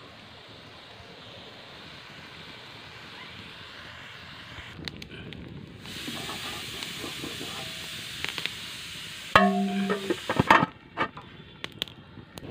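Steady hiss of a wood fire burning under a wok of simmering curry, with a few faint crackles. About nine seconds in, a metal lid clangs onto the steel wok and rings briefly, followed by a few lighter clinks.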